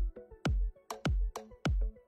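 Electronic background music with a steady beat of low drum hits, about two a second, and short synth notes between them.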